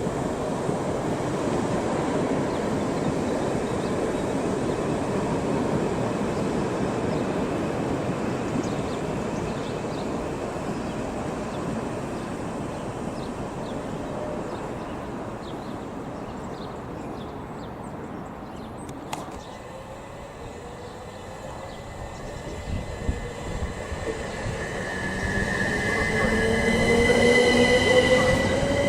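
An electric passenger train passing on the line, its wheel and rail rumble slowly fading away. Near the end, a rising electric whine builds as another train's traction motors pick up speed.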